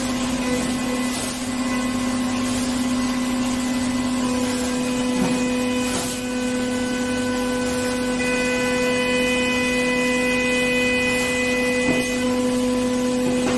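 CNC milling machine cutting a bar held on a fourth-axis rotary table under a coolant spray: a steady hum with a pitched tone and a hiss. Higher tones join from about eight seconds in as the cut goes on.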